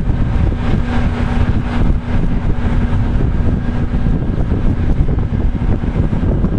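Heavy wind rumble buffeting the microphone over a hi-rail pickup truck idling on the track. A steady low hum runs under the rumble and drops out about four seconds in.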